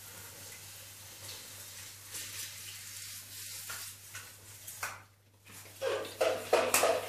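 Hand-pump pressure sprayer misting liquid onto a figurine: a steady hiss of spray with short pulses, stopping about five seconds in. Rhythmic music starts near the end and is the loudest sound.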